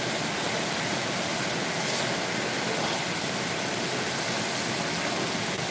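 Steady whooshing background noise of a running fan.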